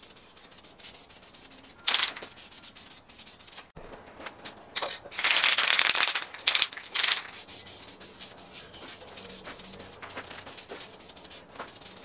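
Aerosol spray-paint can hissing in bursts: a short spray about two seconds in, then a longer one of about a second near the middle, followed by two quick ones.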